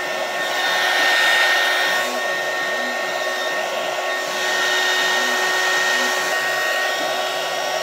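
Hot-air blower switched on and blowing steadily onto the black PVC heat-shrink wrap of a battery pack, shrinking it. A steady rush of air with a fan-motor whine on top, starting abruptly.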